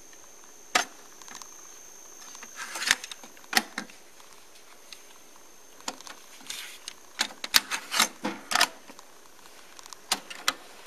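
Mechanical clicks and clunks from the piano-key transport buttons and cassette-well door of an MCS 683-3595 dual stereo cassette deck as a cassette is handled and loaded into the second deck, with the Play key pressed near the end. The clicks come singly and in short clusters, busiest in the second half.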